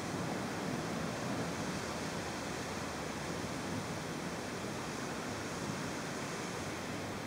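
Steady hiss of a heavy downpour during a thunderstorm, even throughout, with no distinct hailstone impacts or thunderclaps.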